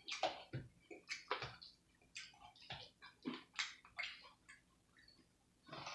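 Close-miked chewing of Flamin' Hot Cheeto–crusted fried pickles: irregular wet crunches and mouth smacks, about two a second.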